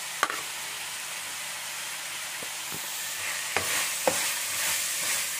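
Diced carrots and vegetables sizzling in hot oil in a metal pan while a metal spoon scrapes and stirs them, with a few sharp clinks of the spoon. The sizzle swells about three seconds in as the vegetables spread over the hot pan.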